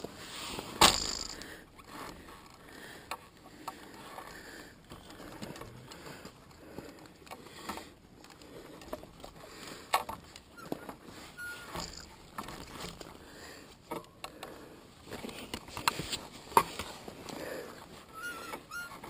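Irregular scuffs and knocks of footsteps and handling while a dead dirt bike is pushed along a dirt trail, with one sharp knock about a second in; no engine running.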